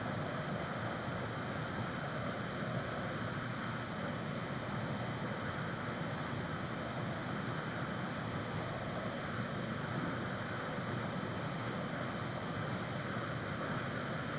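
Steady room-noise hiss with no distinct events.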